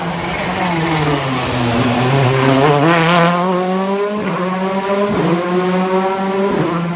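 A rally car passes close on a wet road and accelerates away. Its engine note falls, then climbs, with three upshifts in the last three seconds. A rush of hiss from its tyres on the wet tarmac comes as it goes by, about three seconds in.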